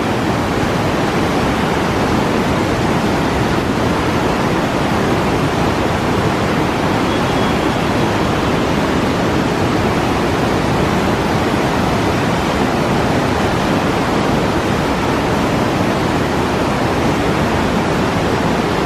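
Fast, snowmelt-swollen mountain river rushing loudly and steadily beneath a small bridge, its noise so loud that people can't hear each other talk.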